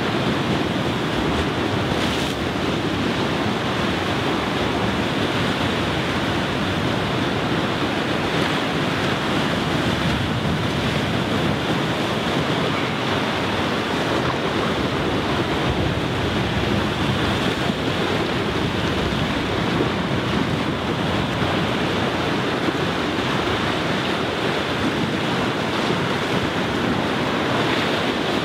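Sea surf breaking and washing over a rocky shore: a steady, unbroken rush of waves.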